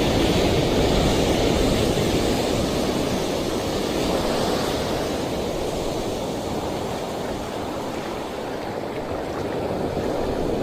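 Sea surf washing onto a sandy beach, a steady rushing noise that eases a little after the middle and builds again near the end.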